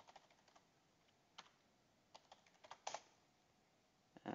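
Faint, scattered keystrokes on a computer keyboard while a username and password are typed, with a slightly louder keystroke about three seconds in.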